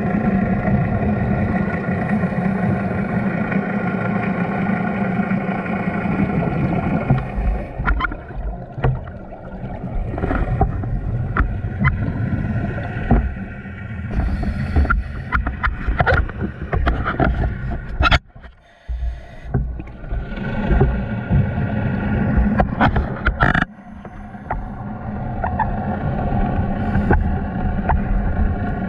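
Boat engine droning, heard underwater: a steady hum with overtones for the first several seconds. Then low rumbling with scattered sharp clicks and knocks, which briefly cuts out twice in the second half.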